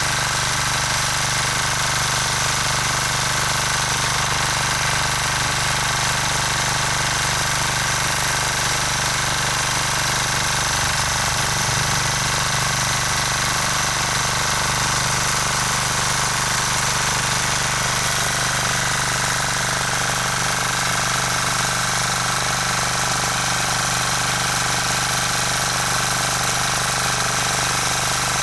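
Rotakt walk-behind tractor's engine running steadily as its rotary tiller churns the orchard soil.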